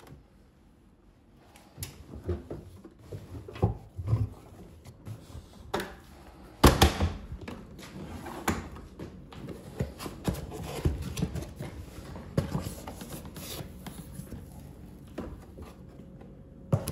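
Laundry being handled at a front-loading washing machine: fabric rustling as clothes are pushed into the drum, with scattered knocks and clicks and one loud knock about a third of the way in. Later the plastic detergent drawer is pulled open and handled.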